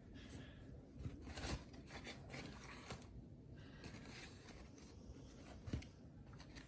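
Faint rubbing and rustling as a mesh baseball cap is handled and turned round on its display stand, with a few soft knocks, the clearest about a second and a half in and near the end.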